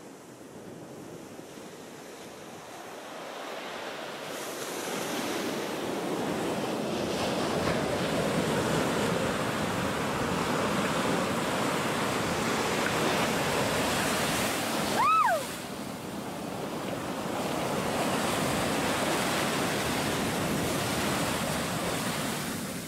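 Ocean surf breaking and washing up the beach, with wind on the microphone; the surf noise swells over the first several seconds and then stays steady. About two-thirds of the way in, a brief high call rises sharply in pitch and cuts through.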